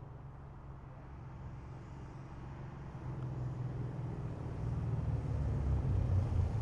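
Exhaust of a Lexus RC F's 5.0-litre V8 fitted with PPE unequal-length headers, growing steadily louder.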